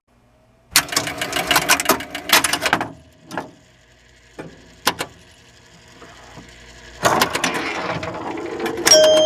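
Rapid mechanical clicking and clattering in two dense runs, with a few single clicks in between. Steady electronic tones start near the end.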